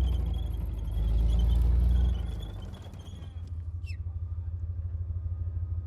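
Heavy vehicle engine rumbling, easing off about two seconds in and settling into a steady, fast-pulsing idle. A brief high squeal falls in pitch about four seconds in.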